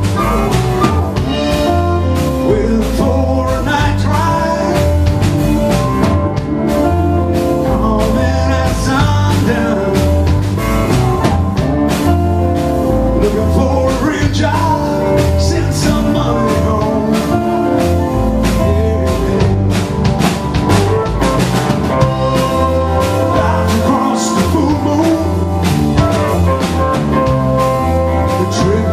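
Rock band playing live: acoustic and electric guitars, bass guitar and drum kit, with a man singing the lead vocal.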